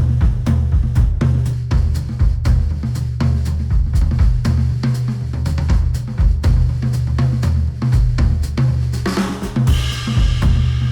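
Music with a driving drum-kit beat (kick, snare and hi-hat) over heavy bass, played back through Sennheiser headphones and picked up by measurement microphones. A brighter swell comes in about nine seconds in.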